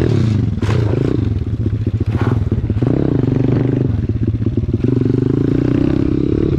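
Engine running at a steady speed, with two brief rushing noises, the first about half a second in and the second about two seconds in.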